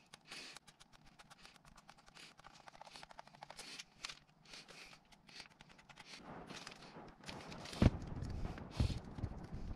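Hands handling a plastic bezel packed with polymer repair compound and painter's tape, with faint clicks and rustles. From about six seconds in there is louder rustling, and a sharp knock near eight seconds as the bezel is set down on the workbench.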